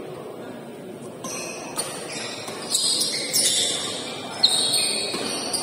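Badminton rally: sharp racket hits on the shuttlecock and short high-pitched squeaks of shoes on the court floor, starting about a second in, over a low hum of the hall.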